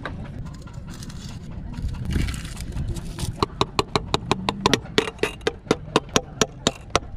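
A rapid, regular series of sharp metallic clicks or taps from tool work on an engine, about five a second, starting about halfway through, over a low steady rumble.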